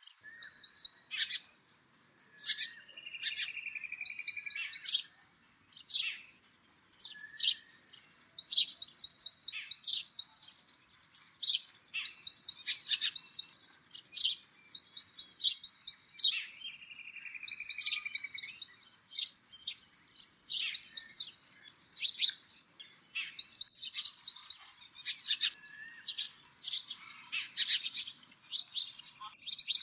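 Songbirds chirping: rapid high trills about a second long, repeating every few seconds, mixed with short sharp chirps.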